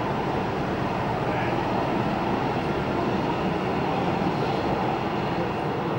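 Boeing 737-800's CFM56-7B turbofan engines running at taxi power as the airliner rolls slowly past: a steady, even jet noise.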